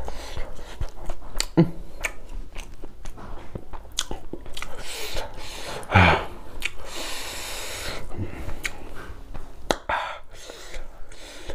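Close-miked chewing and mouth sounds of a man eating rice and chicken by hand, with many short clicks of the mouth. A brief spoken remark comes about six seconds in.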